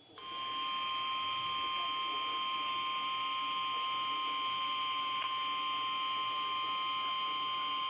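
Emergency Alert System attention signal received over a radio broadcast: one long, steady, buzzy electronic tone that starts just after the opening and holds without a break. It announces the spoken tornado-drill test message that follows it.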